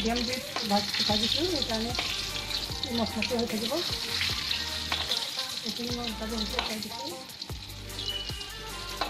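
Chicken kofta balls deep-frying in hot oil in a metal kadai, a steady sizzle, with scattered taps and scrapes as a spatula turns them in the pan.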